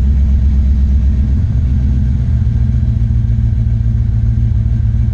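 LS V8 engine in a BMW 318ti running steadily on a newly fitted 85mm throttle body while the engine computer relearns its idle. About a second and a half in, the engine note steps up to a higher pitch and holds there.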